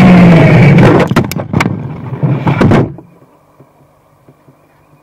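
An RC car's motor whining at speed over loud tyre and road noise, then breaking up into several sharp knocks and clatters as the car crashes and tips over, going suddenly quiet about three seconds in.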